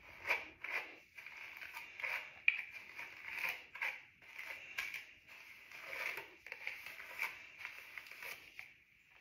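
Hands working conditioner through wet, curly hair: a run of irregular rustles and scrapes, about one or two a second.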